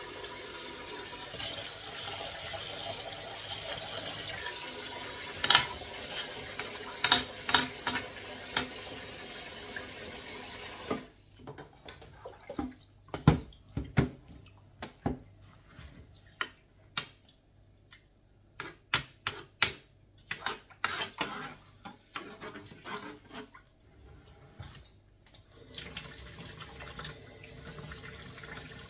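Kitchen tap running into a sink, shut off about eleven seconds in. A quick string of sharp clinks and knocks follows, and the tap runs again near the end.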